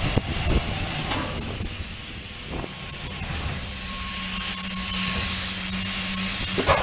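Handheld electric disc sander running over a painted steel truck door panel: a steady whirring hiss that dips a little in the middle.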